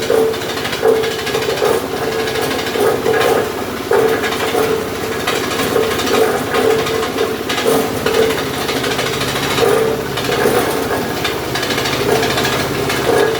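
A crusher machine for lightweight bricks (hebel) running steadily, with irregular knocking and rattling as chunks of aerated concrete block are broken up inside it.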